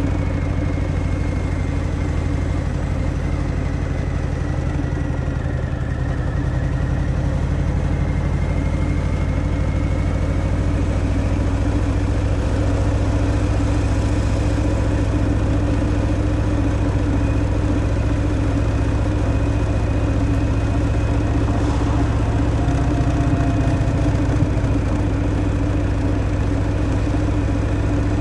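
Harley-Davidson Fat Boy's Milwaukee-Eight 114 V-twin running through its stock exhaust at a steady engine speed, with little change in pitch.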